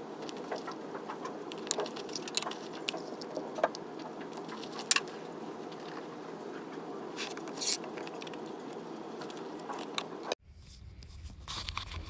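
Light clicks, taps and rustles of objects being handled on a desk, over a steady room hum. The sound cuts off suddenly about ten seconds in.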